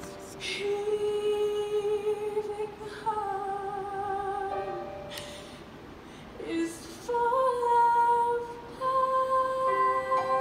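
A woman singing a musical-theatre song in long held notes, phrase by phrase, with a short quieter break about two-thirds of the way through.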